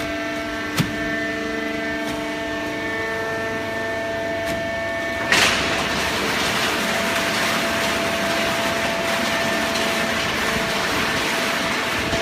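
Automatic horizontal hydraulic cardboard baler running: a steady machine hum with several whining tones and a sharp click about a second in. About five seconds in comes a sudden loud burst, after which a steady rushing noise covers most of the tones.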